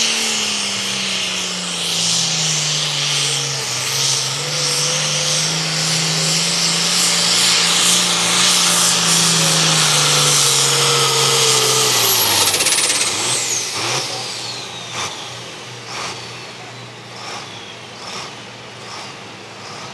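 Turbocharged diesel engine of a Super Farm pulling tractor running hard under load as it pulls the sled, with a high steady turbo whistle over the engine. About two-thirds of the way through the throttle comes off: the engine note and the turbo whine fall away together and the sound drops to a much quieter level.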